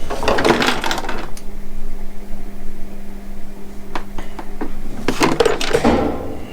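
Hard plastic scraping and clicking as the Milwaukee M18 shop vac's filter is twisted off and handled. Scraping in the first second or so, a few sharp clicks around four seconds in, then more scraping near the end.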